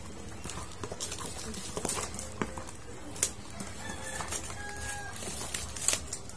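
Scissors snipping and plastic packaging rustling as a parcel is cut open, heard as scattered sharp clicks.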